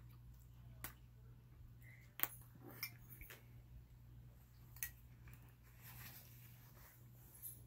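A metal fork clinking against a ceramic noodle bowl, about half a dozen short sharp clicks with the loudest about two seconds in, over a low steady hum.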